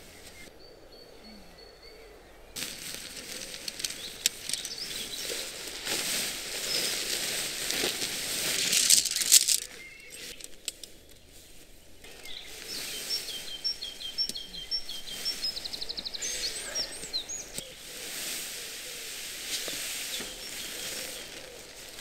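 An MSR Hubba tent's fly and poles being handled and rustled as the tent is pitched. Small birds chirp a run of short repeated notes about halfway through.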